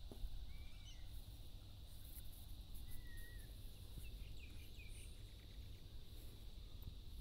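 Quiet outdoor ambience: a low rumble on the microphone and a faint steady high tone, with two short, faint, falling chirps about half a second and three seconds in.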